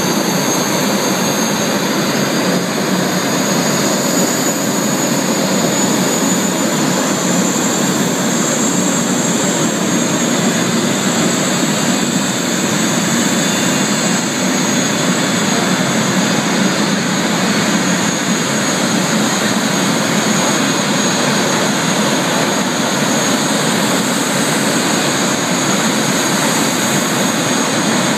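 Jet dragster's turbine engine running loud and steady: a rushing noise with a high whine on top that edges up slightly in pitch, then holds.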